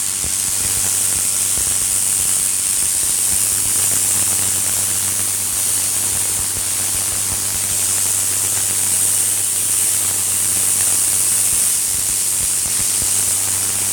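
Greenworks 1700 PSI electric pressure washer running, its spinning turbo nozzle spraying water onto concrete in a steady, loud hiss, with a steady low hum from the pump motor underneath.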